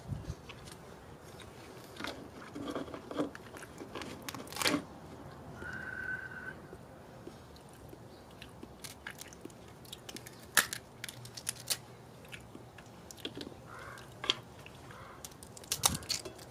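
Cooked California pink crab shell cracking and snapping as hands break the legs apart, with chewing and crunching in between. The snaps are scattered and irregular; the sharpest comes about ten seconds in, and there is a cluster of them near the end.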